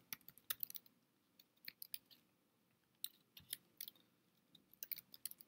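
Faint typing on a computer keyboard: scattered single keystroke clicks in a few short, irregular runs.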